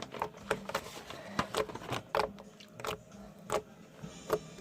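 Glittery blue slime being squeezed and poked by hand, giving irregular sticky clicks and pops, about a dozen of them.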